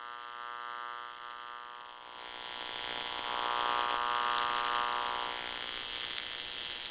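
AC TIG welding arc on 6061-T6 aluminum, a steady electric buzz with hiss, under argon shielding gas. It gets louder and hissier about two seconds in.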